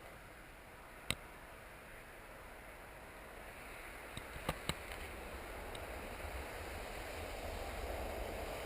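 A vehicle approaching on a road, its tyre and engine noise swelling slowly over several seconds. A few sharp clicks, one about a second in and two close together a little before the middle.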